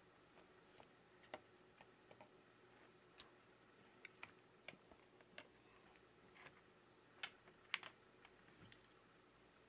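Faint, irregular small clicks and taps of iPad parts being handled during reassembly, as the LCD panel is set down into the frame. Two sharper clicks come about three-quarters of the way through.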